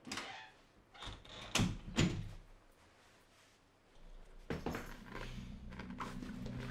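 A few household knocks and thumps, like a door and bags being handled; the loudest two come close together about two seconds in. A low steady hum comes in about four and a half seconds in.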